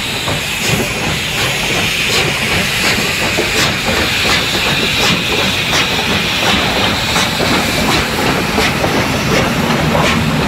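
Steam locomotive hissing steam over a low rumble, with a sharp beat repeating evenly about every 0.7 seconds.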